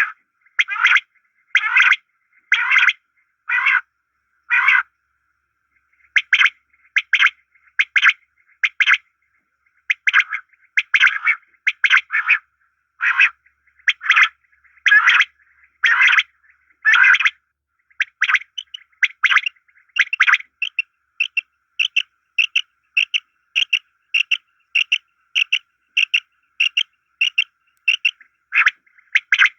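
Bird calls, of the birds called muraiʿi in Arabic, repeated in an even series about once a second; a little after halfway they change to a faster run of shorter, clearer calls about twice a second.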